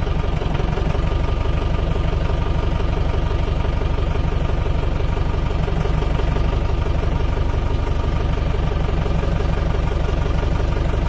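Safari vehicle's engine idling steadily, a rapid even firing rhythm.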